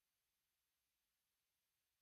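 Near silence: a digital gap with no sound at all.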